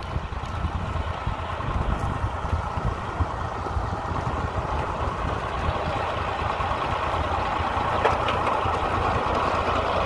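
Tractor engine running steadily as it pulls a Sunking tractor-mounted potato digger through the soil, the digger working along with it. The sound grows a little louder near the end.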